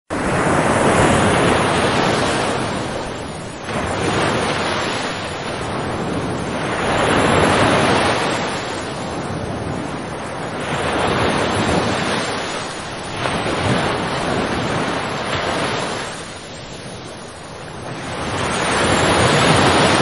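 Sea waves breaking against a seawall and washing over the promenade. The surf swells and ebbs in surges every few seconds, loudest near the end.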